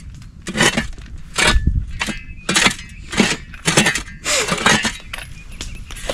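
A digging tool striking stony soil at the bottom of a pit, about one sharp stroke a second, with metal hitting earth and small stones.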